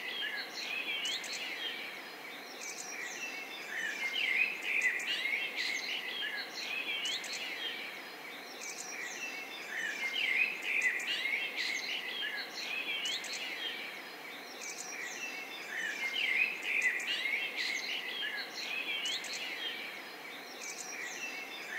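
Many small birds chirping and twittering, a busy chorus of short calls and quick rising whistles that swells every six seconds or so.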